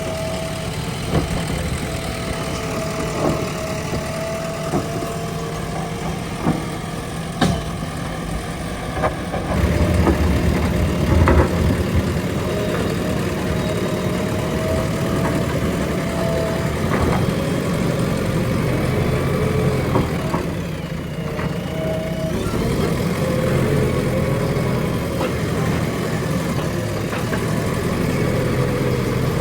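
JCB 3DX backhoe loader's diesel engine running under work, with a thin steady whine over it and a few sharp knocks. The engine grows louder about a third of the way in.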